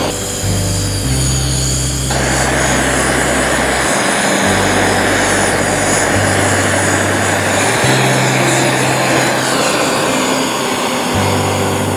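Handheld butane gas torch burning with a steady hissing roar, starting about two seconds in, as its flame is held on split firewood in a metal fire pit. Background music with a slow bass line plays under it.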